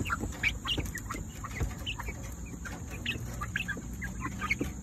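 Young chickens and silkies cheeping while they feed, many short high calls in quick succession from several birds.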